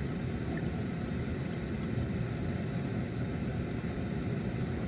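Backpacking camp stove burning steadily under a pot of water being heated to the boil, a continuous low rushing sound.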